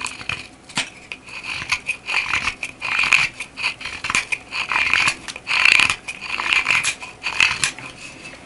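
A thin, hard steel knife edge whittling the tip of an elk antler: a series of short, dry scraping strokes, irregular, about one or two a second, as shavings are scooped off the hard antler.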